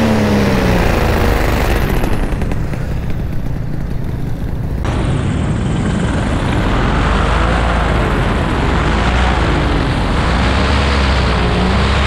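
Paramotor engine and propeller heard from the pilot's helmet, mixed with loud wind rush. The engine is throttled down in the first second, wavers in pitch through the second half, and rises again near the end.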